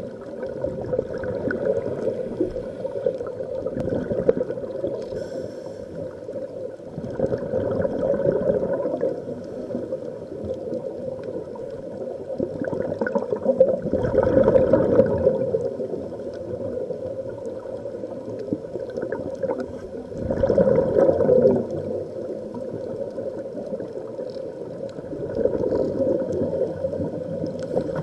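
Underwater recording of scuba divers breathing out through their regulators: muffled bubbling and gurgling that swells in surges every few seconds as each exhalation's bubbles rise.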